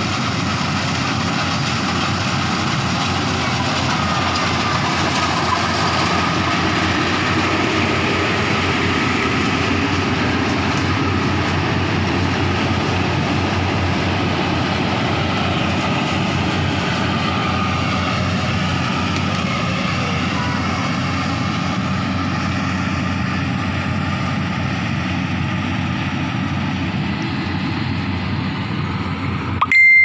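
Engine-driven rice harvesting machinery running steadily: a combine harvester and a threshing machine working the crop, giving an even mechanical drone that does not break or change in level.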